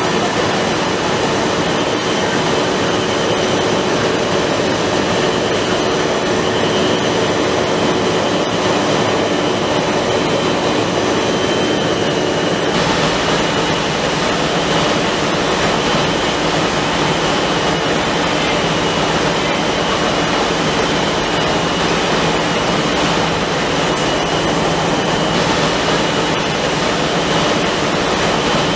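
Running blown film line: a steady, loud rushing hum of blowers and motors with several steady tones in it. The mix shifts slightly about thirteen seconds in.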